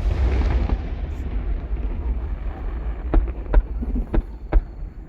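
Aerial fireworks shells bursting: a deep rolling boom that fades over the first couple of seconds, then four sharp separate bangs in the second half, heard across a river from some distance.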